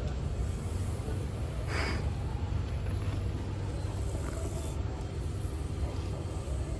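Sleeping cat snoring close to the microphone: a steady low rumble, with a brief hiss about two seconds in.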